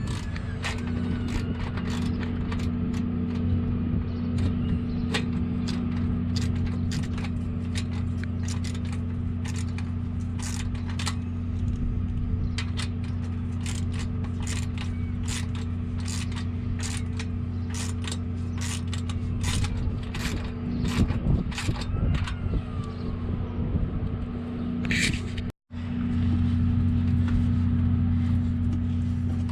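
Hand tools clicking and clinking on the new exhaust clamp hardware as it is tightened, in many sharp irregular clicks over a steady low hum. The sound cuts out briefly near the end.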